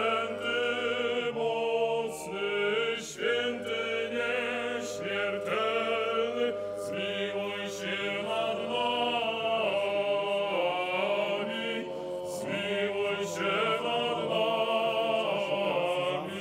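Orthodox church choir singing unaccompanied liturgical chant, several voices moving in harmony over a long-held low note.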